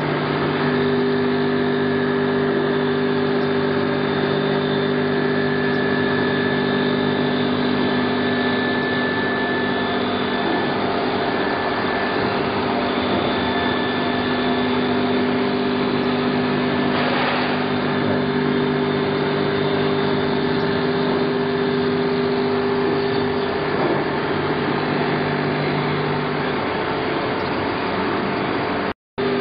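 Straight knife blade grinder running, its motor-driven cup grinding wheel working along a flat knife blade under coolant: a steady machine hum with several constant tones. One low tone drops out near the end, and the sound cuts out briefly just before the end.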